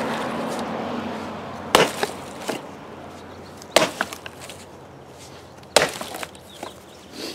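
Antique Plumb axe chopping into a rotten log: three strikes about two seconds apart, each followed by a fainter knock or two.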